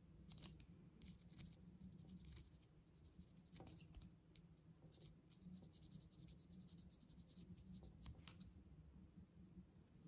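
Faint scratching and small clicks of a pencil lead rubbed against a small metal guitar string tree, working graphite onto it as a lubricant, over a low steady room hum.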